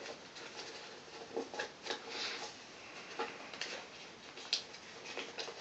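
Thin origami paper being folded and creased by hand on a ukulele's body: irregular soft rustles and crinkles, with a few sharper crackles as folds are pressed down.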